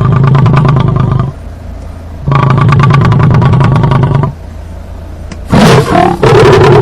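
An animal's loud, rasping pulsed calls: two long calls with a pause between, then a shorter broken call near the end.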